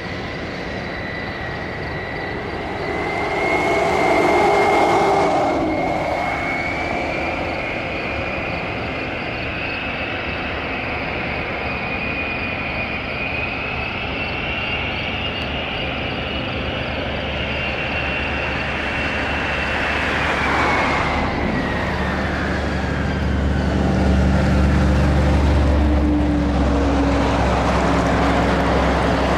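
Boeing B-52H Stratofortress's eight TF33 turbofan engines running as the bomber taxis. A high whine rises slowly in pitch, then falls away about two-thirds in, while a deep rumble grows toward the end.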